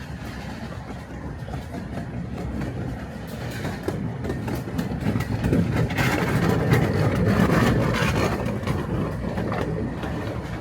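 Redwood Valley Railway miniature train running on its 15-inch gauge track, the rumble of wheels on rail swelling to its loudest about two-thirds of the way in, then easing off.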